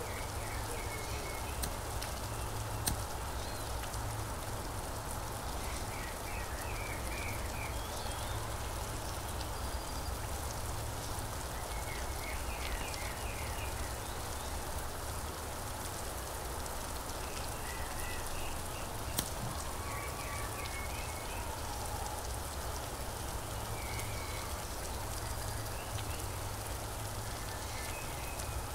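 Steady rain falling, with short high chirps every few seconds and a couple of sharp ticks, about three seconds in and near the middle.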